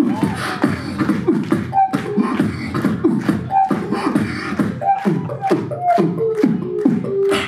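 A beatboxer performing live into a handheld microphone over a PA: a fast, steady beat of deep kick sounds and sharp clicks, with short pitched vocal notes laid over it and one held note near the end.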